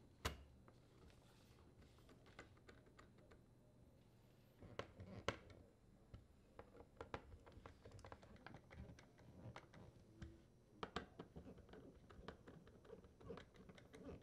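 Faint clicks, taps and light scraping of a 3/16-inch nut driver driving screws into a dishwasher detergent dispenser's metal mounting bracket. There is a sharp click near the start, a louder cluster about five seconds in, and quick small ticks through the second half.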